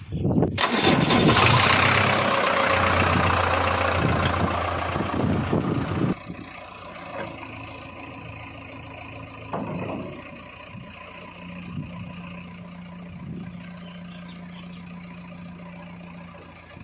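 Heavy-vehicle diesel engine starting and running loud, then dropping abruptly about six seconds in to a quieter steady running with a low hum.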